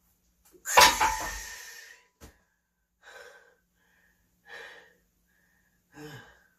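A loaded barbell racked onto a power rack's steel hooks with a loud metal clank that rings for about a second. Then heavy breathing after a bench-press set: three breaths about a second and a half apart, the last one voiced.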